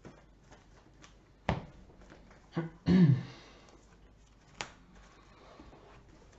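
A few sharp taps and clicks of cards being played on a table, with a short low vocal sound from a player, such as a grunt or hum, about three seconds in.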